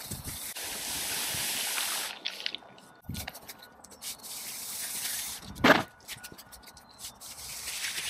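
Stiff push broom sweeping water and grit across a wet tarmac driveway, with two long swishing strokes, one about half a second in and one around four seconds in. A brief louder knock comes just before six seconds.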